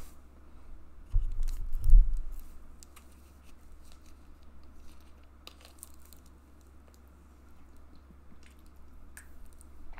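A few low thuds about a second in, then scattered crinkles and clicks of a plastic water bottle being handled and drunk from.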